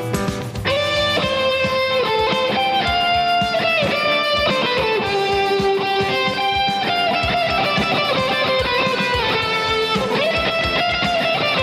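Electric guitar playing a lead solo high on the neck, with single sustained notes, string bends and slides, over a full band backing.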